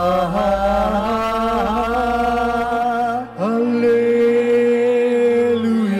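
A voice singing a slow, chant-like worship melody in two long held notes, with a brief break and an upward slide into the second note about three seconds in.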